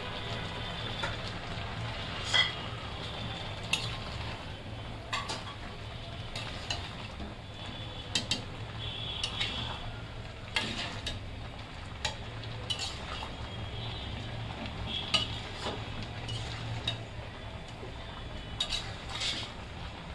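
A metal spatula stirring chunks of bottle gourd and fish curry in an aluminium pot, with irregular clinks and scrapes against the pot's side, over a steady low hum.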